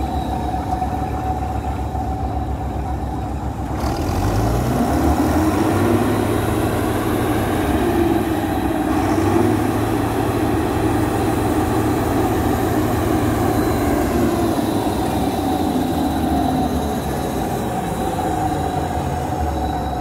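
Malkit 997 combine harvester running in the field: its engine, threshing drum and belt-driven pulleys giving a steady mechanical din with a constant whine. About four seconds in the engine speeds up and the noise grows louder, holding there until it eases a little near the end.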